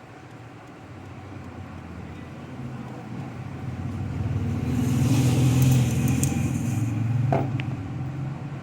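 A motor vehicle passing by, its engine and tyres growing steadily louder to a peak in the middle and fading away near the end. A sharp click sounds late in the pass.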